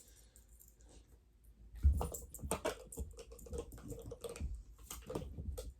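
Quick, light clicking and tapping from a dog moving close by, starting about two seconds in, with one sharper tap at the start.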